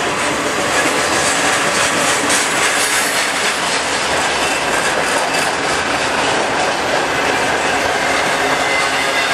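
Norfolk Southern intermodal freight train's trailer-carrying flatcars passing close at speed: a steady, loud rumble and clatter of steel wheels on rail, with a thin steady ringing above it.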